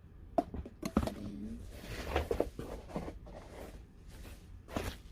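Light knocks and rustling as small items and packaging are handled, with a few sharp clicks in the first second.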